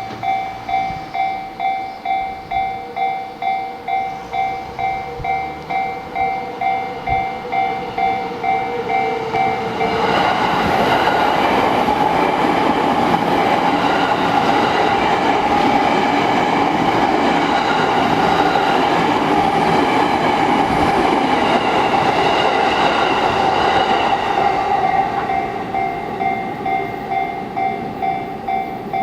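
Japanese level-crossing warning bell ringing in a steady, fast rhythm of about two strikes a second. About ten seconds in, a Yamanote Line train passes over the crossing, and its running noise drowns the bell. The train noise fades near the end, and the bell is heard again.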